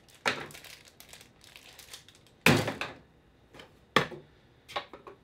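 Clear plastic packaging crinkling and rustling in several short bursts as it is pulled off by hand, the loudest about halfway through.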